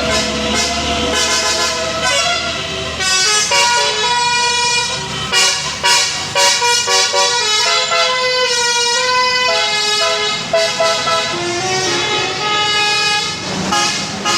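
Bus 'telolet' musical air horns of the Basuri type playing a tune: several horn tones sounding together and stepping from note to note in a melody.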